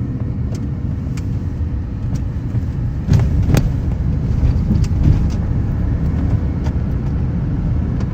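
A vehicle running: a steady low rumble, with a few scattered sharp clicks.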